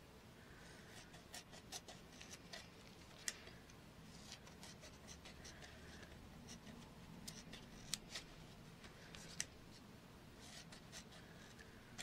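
Scissors cutting through a sheet of craft foam in short, irregular snips. Faint, with soft clicks of the blades.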